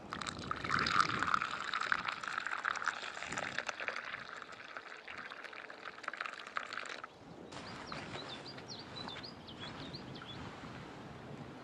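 Liquid being poured into a wooden cup, a steady splashing pour that stops abruptly about seven seconds in. After it, a quieter outdoor background with a few short high chirps.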